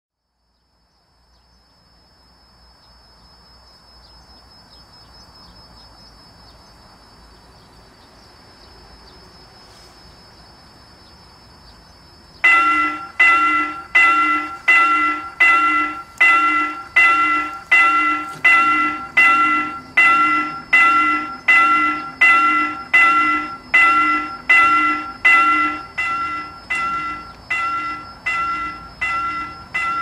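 Level-crossing warning bell starting about twelve seconds in and striking steadily, roughly three strikes every two seconds, each strike ringing and fading; it signals an approaching train as the crossing closes. Before it there is only faint outdoor background noise, and a low hum joins partway through the ringing.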